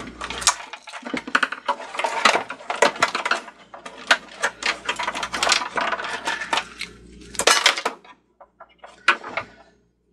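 Hard plastic parts of an old Cricut Expression cutting machine's housing clicking and clattering as they are handled and pried apart by hand. A dense run of clicks thins to a few scattered clicks near the end.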